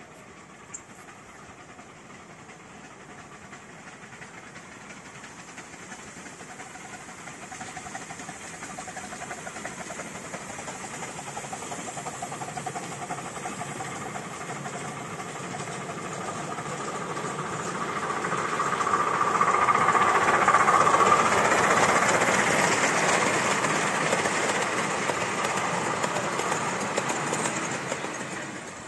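Miniature steam locomotive hauling a passenger train, approaching steadily louder, loudest as it passes close by about two-thirds of the way in, then falling away.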